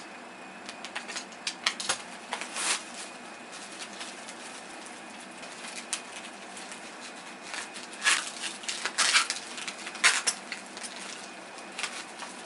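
Handling noise: irregular rustling crinkles and light clicks and taps as a replacement TV power supply board is taken from its packaging and handled, with louder bursts about a third of the way in and again near the end.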